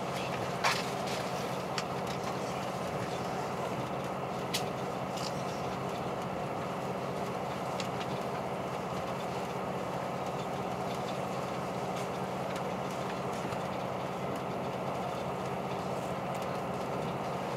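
KiHa 183 series diesel railcar idling with a steady hum, heard from inside the car while it stands at the station. A few sharp clicks sound in the first few seconds, the loudest under a second in.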